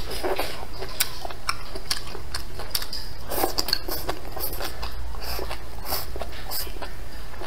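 Close-miked chewing of a mouthful of leafy greens and enoki mushrooms, with many short wet mouth clicks and crunches.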